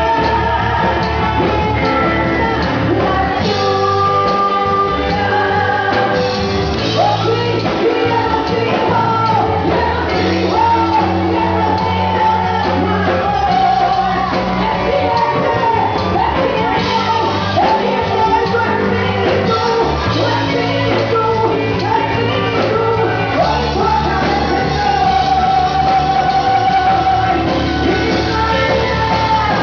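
Live gospel worship song: singers' voices over a full band with a strong bass line and a steady drum beat, with some shouted voices.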